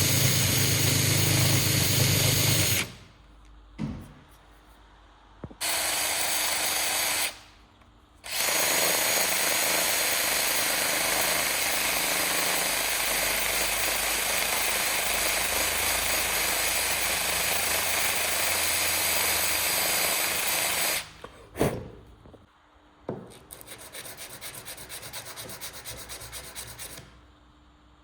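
Electric power tool running in three bursts with a steady high whine, the longest about thirteen seconds, each stopping abruptly. A few knocks follow, then a run of quieter, rapid, even rubbing strokes worked by hand.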